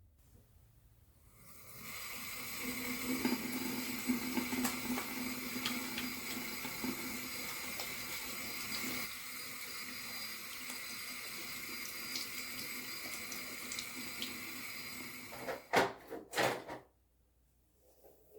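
Water tap running steadily into a sink for about fourteen seconds, then stopping, with a few loud knocks near the end.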